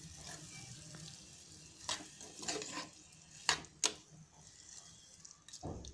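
Spatula stirring and scraping chutney in a metal pan over a faint frying sizzle, with a few sharp scrapes against the pan between two and four seconds in and a dull knock near the end.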